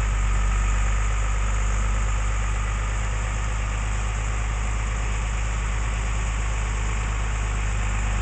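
A vehicle engine idling steadily: an even, unbroken low hum.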